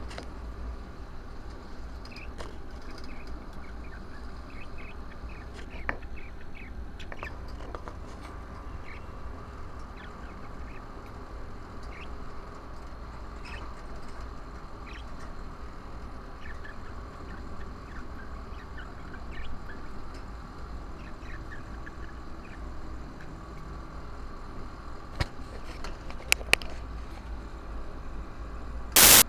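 Lovebirds chirping and squawking in short, scattered calls, with occasional clicks; a brief loud burst cuts in near the end.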